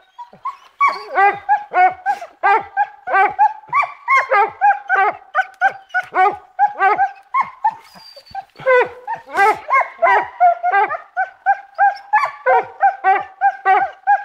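Hounds yelping in a rapid run of short, high-pitched barks, about three a second, easing off briefly mid-way and picking up again, as they work the scent in thick undergrowth.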